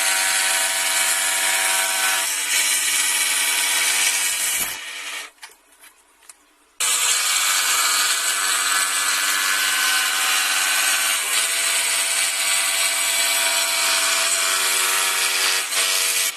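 Feram electric scroll saw running and cutting wood, a steady motor hum under a loud sawing hiss. About five seconds in the sound drops away for about two seconds, then comes back at the same level.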